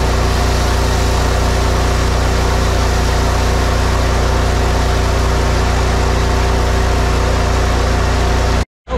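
Pressure washer engine running steadily under the hiss of a 31-inch surface cleaner spraying a concrete driveway. The sound stops abruptly near the end.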